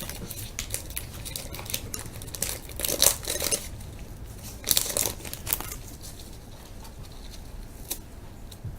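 Wrapper of a 1998 Bowman Chrome football card pack being torn open and crinkled by hand. It comes in short irregular crackles, the loudest about three and five seconds in.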